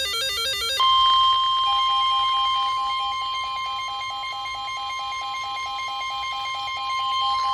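Emergency Alert System data burst, a harsh warbling screech that cuts off under a second in, followed by the NOAA Weather Radio 1050 Hz warning alarm tone, a loud steady high tone that signals an urgent weather warning. About a second after the tone starts, a lower beep pulses alongside it at about four beeps a second.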